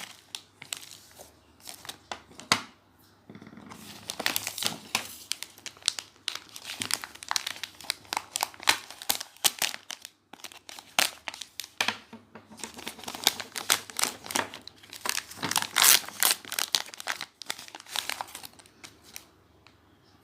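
Packaging crinkling and crackling as items are unwrapped by hand, in dense runs with short pauses about two and ten seconds in. The crackling stops shortly before the end.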